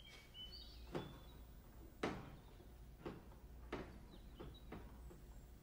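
Soft, irregular footsteps on a wooden floor, about six dull steps, the loudest about two seconds in, over a low steady hum. Faint high squeaks sound in the first second.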